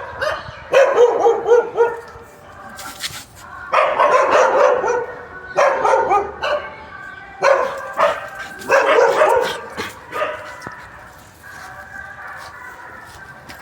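A dog barking and yelping in about six drawn-out bouts, then quieter near the end.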